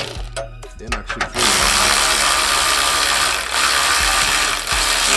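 A/C vacuum pump running on the truck's refrigerant line, a loud steady mechanical hiss, pulling the system down to vacuum before recharging. It cuts out briefly at the start and then runs on, stopping sharply near the end.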